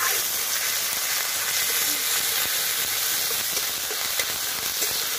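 Whole spices (dried red chillies, bay leaves, whole garam masala, panch phoron and asafoetida) sizzling steadily in hot mustard oil in a kadai.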